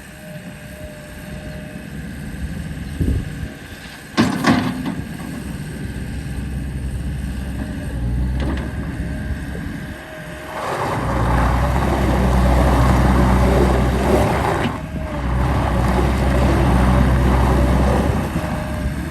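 Gehl 6640 skid steer loader's diesel engine running, with a sharp clunk about four seconds in. From about ten and a half seconds the engine is revved up and held high, dropping back briefly near fifteen seconds before rising again.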